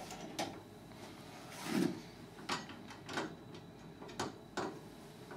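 Irregular clicks and light knocks, about six of them, with a duller thump about two seconds in: a hand screwdriver and a patio-door handle being handled against the door sash while the handle's screws are driven back in.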